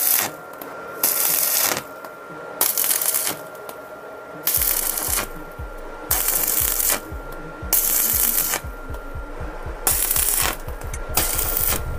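Electric arc welding of a steel bracket onto a bicycle fork: the arc crackles and sizzles in short runs of under a second, about eight times, with a faint steady whine beneath.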